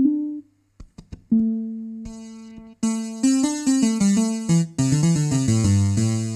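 Farfisa Pergamon analog organ playing its classic guitar preset with both sliders turned all the way up, a setting that brings out a glitch: a few single plucked notes that ring and die away, then from about three seconds in a quick run of notes down and back up with a bright hiss over them.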